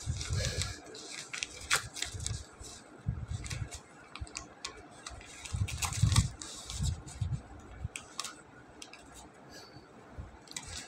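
A cat biting and clawing at spiral-notebook pages: paper crinkling and tearing, with many sharp clicks and dull bumps scattered through.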